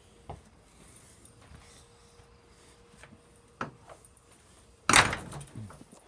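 A few hollow knocks on the wooden structure, then one much louder bang about five seconds in that rings briefly before dying away.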